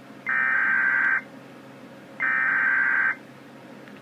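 Emergency Alert System SAME header: two identical bursts of rapid digital data tones, each just under a second long, about a second apart. These are the coded header that opens a severe thunderstorm warning from the National Weather Service.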